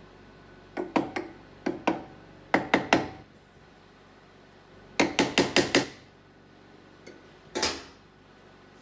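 Small jeweller's hammer tapping on a silver piece in short groups of quick, sharp strikes: three, two, three, then a fast run of about six, and a single strike with a brief ring near the end.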